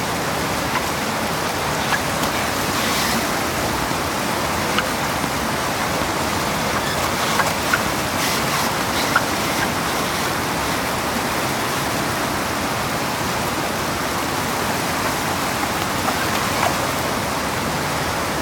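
Rushing whitewater of a rocky river rapid: a steady, even rush of water, with a few short ticks about the middle.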